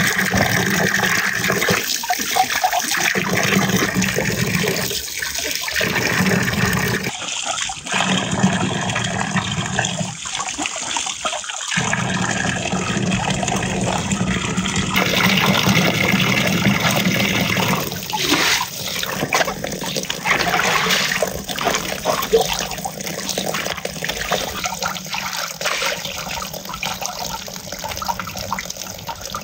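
A stream of water pours and splashes onto vegetables being washed in a shallow metal tray, running off their surfaces. The sound changes abruptly a few times.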